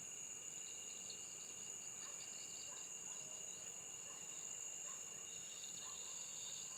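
Crickets and other insects chirping: a steady high-pitched trill, with a second, pulsing chirp over it.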